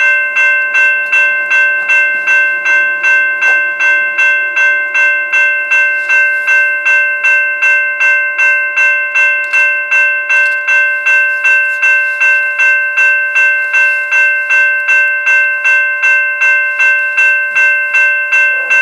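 Railway level-crossing warning bell ringing steadily, about two and a half strikes a second, activated by an approaching train.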